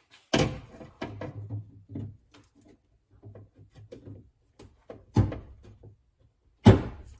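Pliers working on plastic trim clips in the bare sheet-metal inner panel of a Lexus RX rear hatch: three sharp knocks, one just after the start, one about five seconds in and one near the end, with lighter clicks and rattles between.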